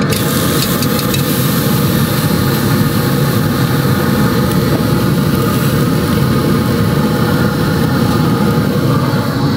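Ribeye steak sizzling loudly on hot metal grill-grate panels, the sizzle jumping up as the steak is laid down at the start, over a steady low rumble from the grill.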